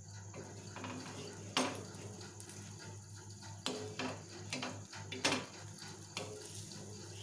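Metal utensils clinking and scraping against a cooking pan, about five sharp knocks, some ringing briefly, over a steady low hum.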